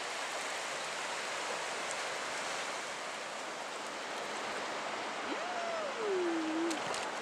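Steady rushing of wind and small waves at the shoreline. About five seconds in, a short pitched sound slides up and then down over about a second and a half.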